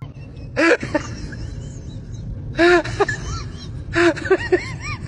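A cat's short meows and chirps in three bursts about a second and a half apart, each a rising-and-falling call followed by a few quicker, higher chirps, over a low steady hum.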